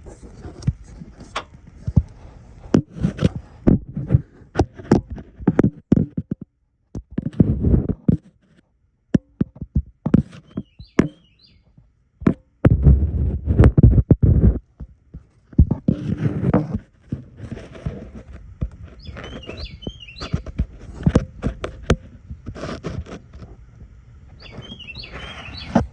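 Irregular clicks, knocks and rustling of handling and moving about, with two longer, louder stretches of low rustle. A few short bird chirps sound in the background.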